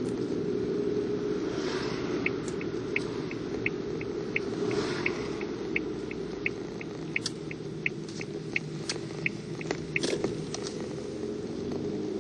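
Car turn signal ticking evenly, about three ticks a second, over the steady rumble of the moving car on the road, with a few sharper clicks near the end as the turn is made.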